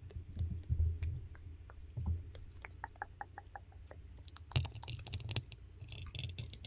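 Thin metal chain necklace with a small pendant, handled and jingled close to the microphone: scattered light clicks and tinkles that grow denser and brighter near the end, with a few soft low bumps of handling at the start.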